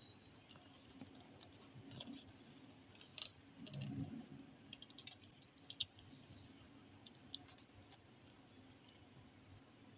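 Faint, scattered small clicks and smacks from a mother cat and her newborn kittens nursing and being licked, with a brief low rustle about four seconds in.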